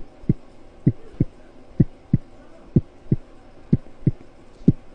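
A man beatboxing a heartbeat with his mouth: steady lub-dub pairs of low thumps, about one pair a second, imitating a normal sinus rhythm.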